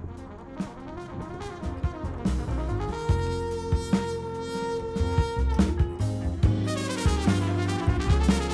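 Background music: jazzy brass over a steady drum beat, fading in over the first few seconds.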